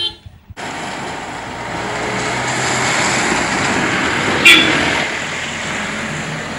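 Swollen, flooded river rushing past a bridge: a steady rushing noise that swells and then eases. A short sharp sound about four and a half seconds in is the loudest moment.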